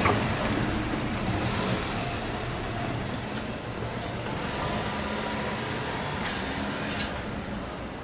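Cars driving slowly one after another across a railway level crossing: steady engine and tyre noise, with a few brief clicks, fading as the last car clears.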